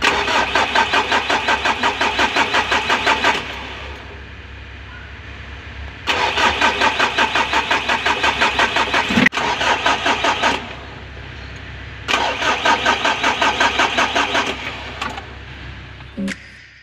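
Mitsubishi L300 diesel engine being cranked by its starter in three attempts of a few seconds each, a rapid even chugging, without catching: hard starting, which the mechanic traces to no current reaching the glow plugs from the heater relay.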